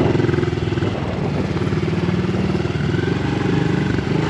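A Honda CRF50F dirt bike's small single-cylinder four-stroke engine running at low speed. Its pitch shifts slightly about a second in and again near three seconds.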